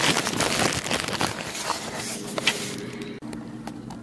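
Handling noise from a phone held close to the microphone: rustling and small knocks as it is moved about, over a steady low hum. About three seconds in the sound drops out for an instant and the hum changes pitch.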